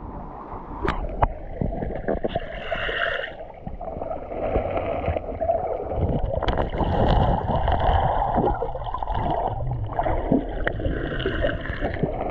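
Stream water sloshing and gurgling close to the microphone, with many small knocks and splashes; the sound is muffled, with little treble.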